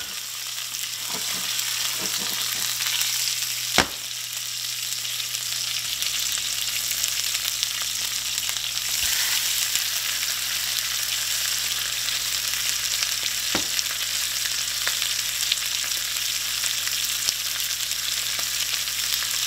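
Breaded cobia fillets sizzling in hot oil in a nonstick frying pan, a steady high hiss, with a sharp knock about four seconds in.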